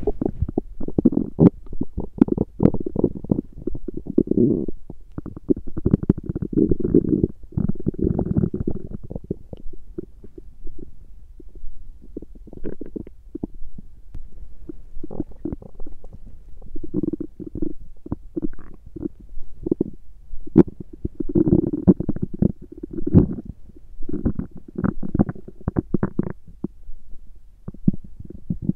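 A woman's stomach growling: long runs of gurgles and rumbles. They are busiest in the first nine seconds and again about three-quarters of the way through, with sparser gurgling between.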